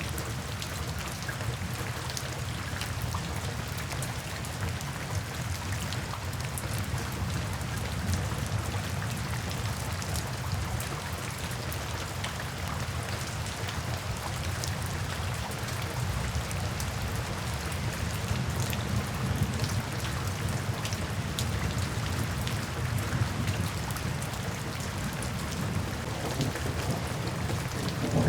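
Steady rain falling into puddles and standing water, with many individual drops ticking and splashing over an even patter.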